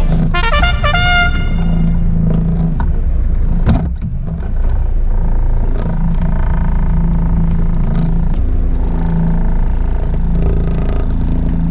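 Fishing boat's engine running with a steady low hum, under heavy low rumble from wind on the microphone. One sharp knock a little under four seconds in.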